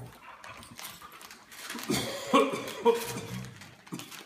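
Gift-wrap paper rustling and crinkling as presents are unwrapped, with a dog whimpering and giving two short, high yips about two and a half seconds in.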